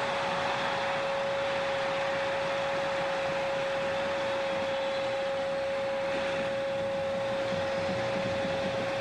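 Stadium crowd noise as a steady rushing haze after a goal from a free kick. Over it a single steady tone, which slides down just before and then holds one pitch throughout, is the loudest sound.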